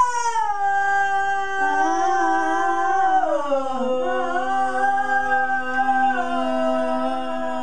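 A single voice singing unaccompanied in long held notes that step down in pitch, wavering in places.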